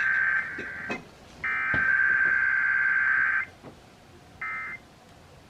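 Emergency Alert System SAME data bursts over FM radio for a Required Weekly Test: harsh two-tone buzzing. One header burst cuts off about a second in, another full header runs for about two seconds, and after a pause a much shorter burst comes near the end, the length of an end-of-message code.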